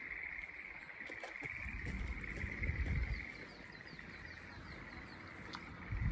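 A chorus of frogs from a flooded rice paddy, a steady high trill, with a run of faint quick chirps joining in about halfway through. Some low rumbling on the microphone about two seconds in.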